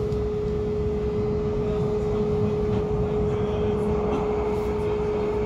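Inside a TW 6000-series Hannover light-rail car running along the track: a low, steady rolling rumble with a constant high hum from the car's electrical equipment.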